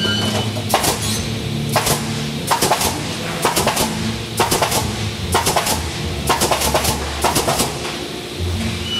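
Nail guns of an automated sub-component nailing machine firing in quick groups of two to four sharp shots, about once a second, over the machine's steady hum.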